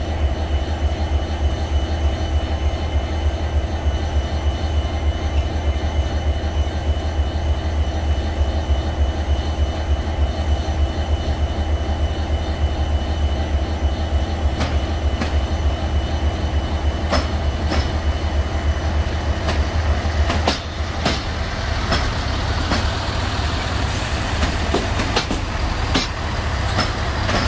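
Electroputere LDE2100 (060-DA) diesel-electric locomotive's Sulzer 12LDA28 engine running under power with a deep, steady rumble as it hauls a passenger train away. From about halfway in, the coaches' wheels click and clatter over the points, the clicks coming thicker in the last several seconds.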